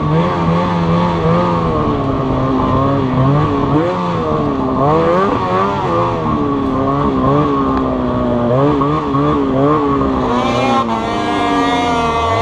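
800 cc two-stroke snowmobile engine under way, revving up and down over and over as the throttle is worked.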